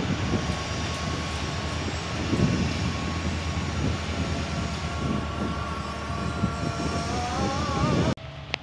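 Plasser & Theurer track-tamping machine (MTT) running, a steady machinery drone with a thin steady high tone over it. The sound cuts off suddenly near the end.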